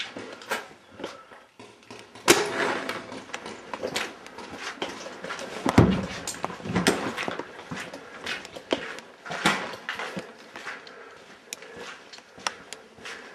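Footsteps and handling noise of a person moving fast through a bare room with a debris-strewn floor: irregular knocks, scuffs and clicks, with a sharp knock about two seconds in and a heavier thump about six seconds in.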